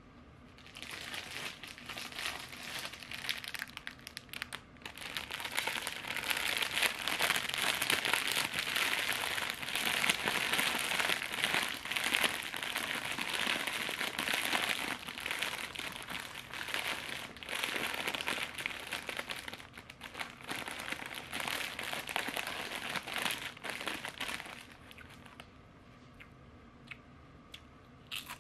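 Foil-lined snack bag crinkling and rustling as it is handled and pulled open, a dense continuous crackle that fades out about 25 seconds in.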